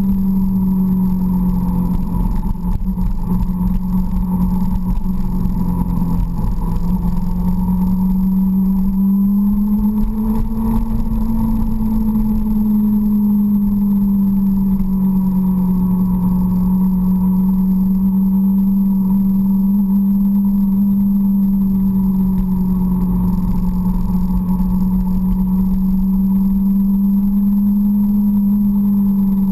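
Suzuki GSX-R sportbike's inline-four engine running at steady revs while cruising, with wind rushing over the bike-mounted microphone. The engine note rises a little about ten seconds in, then settles back.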